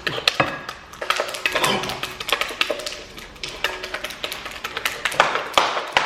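A utensil stirring slime in a mixing bowl: quick, irregular taps and knocks against the bowl as the mixture is worked. Faint background music runs underneath.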